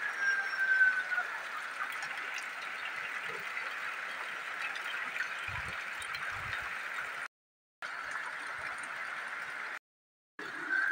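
Steady rain falling, an even hiss, broken twice by short cuts to silence near the end. A faint high tone slides down in the first second.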